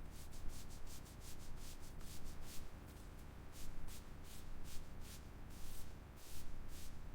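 Rhythmic abrasive rubbing strokes, about two to three a second with short pauses between runs, over a steady low rumble.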